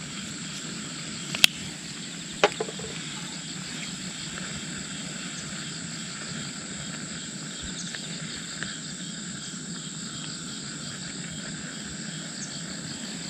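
Insects chirping steadily in the background, with two sharp clicks about one and a half and two and a half seconds in.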